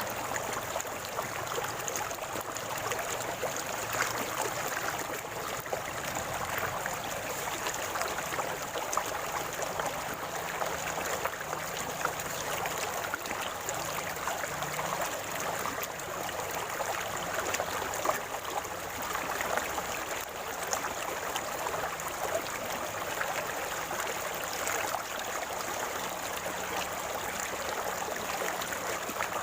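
River water gurgling and rushing steadily, a constant splashing flow.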